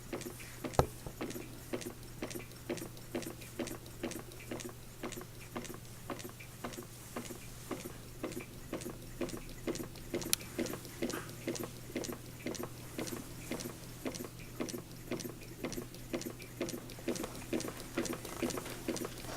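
Jensen #55 toy steam engine running, belt-driving an Ertl die-cast pump jack and Maytag washing machine model: an even rhythm of light mechanical clicks, a little over two a second, over a steady low hum, with one sharper click about a second in.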